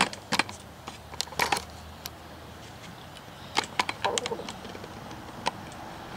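Handling noise as the camera is moved and repositioned: scattered small clicks and rattles in a few short clusters, the loudest right at the start and again a little past three and a half seconds in.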